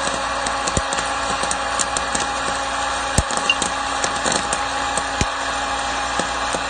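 Al Saif 1200 W hot-air popcorn maker running with a steady blower hum while kernels pop in scattered sharp cracks, three of them louder than the rest.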